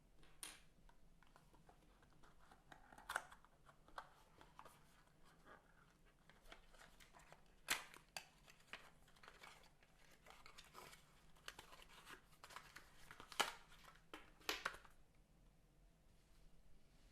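Faint handling of cardboard and paper packaging during an unboxing: scattered rustles and light taps with a few sharper clicks, the loudest about three, eight and thirteen seconds in.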